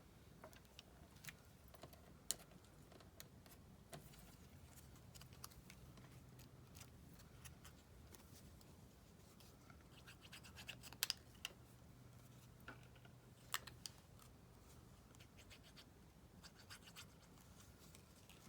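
Near silence with faint scratching and scattered light clicks and taps of hand crafting work on paper, a few sharper taps about two-thirds through, over a faint steady low hum.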